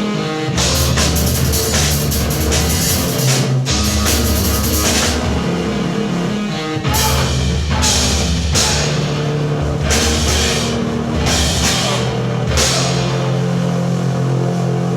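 A rock band playing live, with a drum kit and cymbals over sustained low bass notes. The cymbal wash breaks off briefly several times.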